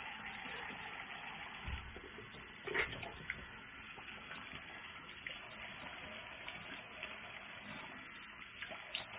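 Tap water running steadily into a bathroom sink, with a brief knock about three seconds in.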